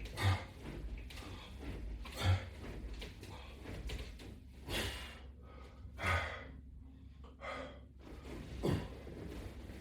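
A man breathing hard while exercising, with a sharp gasp or forced breath out about every one to two seconds, about six in all, as he works through ab repetitions such as sit-ups or crunches.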